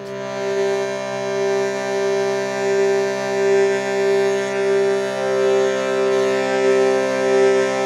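Shruti box, an Indian hand-pumped reed drone box, sounding a sustained chord of several reeds. The volume swells and eases with the bellows, and the main note pulses slowly. A higher note of the chord comes in more strongly about five seconds in.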